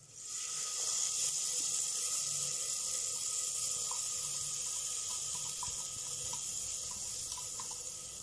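Water poured into hot masala in a clay pot, setting off a steady hiss with scattered small bubbling pops that slowly dies down.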